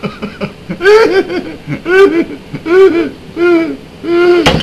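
A man laughing loudly in a string of drawn-out whoops, each rising then falling in pitch, with a sharp click near the end.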